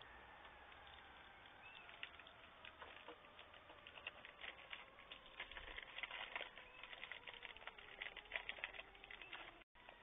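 Faint clicks, ticks and rustles of hands handling small bird-feeder refills, busiest in the second half, over a faint drone that slowly falls in pitch.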